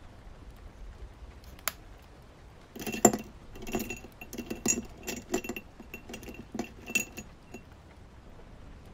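A single click, then about four seconds of light, quick clinks and rattles of small hard objects knocking together with a faint ringing ping, over a steady background of rain.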